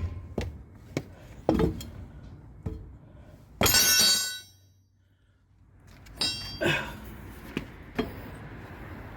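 Steel wheel brace knocking and clanking on the wheel nuts as it is loosened. There is a series of sharp knocks, then a ringing metallic clatter about three and a half seconds in, a brief moment of near silence, and a few more clanks.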